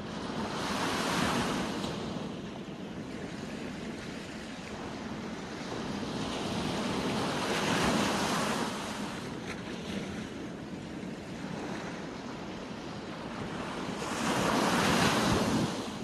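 Sea waves breaking and washing on the shore: three swells of surf about seven seconds apart, each building and falling away over a couple of seconds, with a steady wash of water between them.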